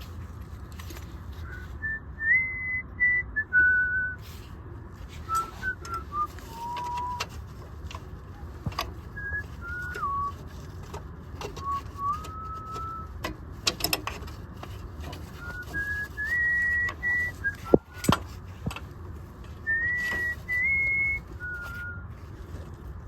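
A person whistling a wandering tune in clear single notes that step up and down between phrases, with a few sharp metallic clicks and knocks of work in between.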